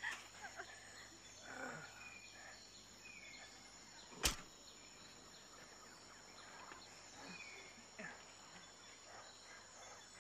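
Quiet jungle ambience: a steady high insect drone with faint voices. One sharp click comes about four seconds in.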